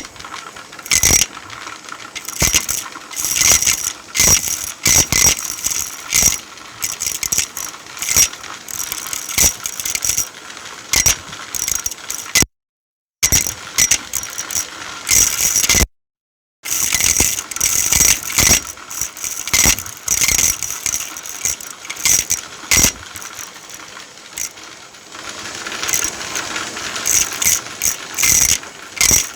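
Irregular rattling and clicking, several sharp clicks a second, broken twice by brief dead silence.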